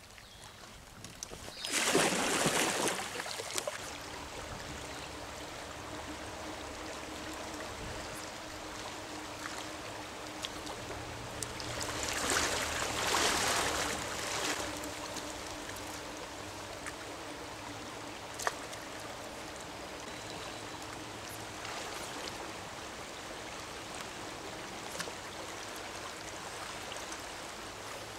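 Stream water running steadily through a shallow riffle, with two louder spells of splashing, about two seconds in and again around twelve to fourteen seconds in.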